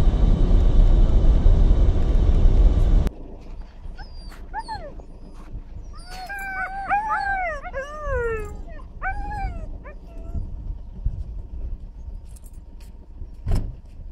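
Several huskies whining and howling in overlapping calls that rise and fall in pitch, after a loud steady rumble that cuts off sharply a few seconds in. A single sharp knock comes near the end.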